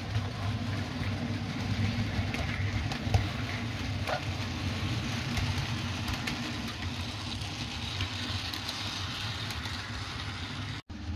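OO gauge model diesel locomotive hauling a goods train past, with a steady low hum from the running train and occasional clicks from the wheels on the track.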